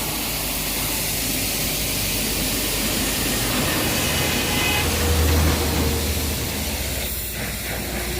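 Steady hissing of a car-wash spray, with a machine's low hum swelling about five seconds in and easing off again.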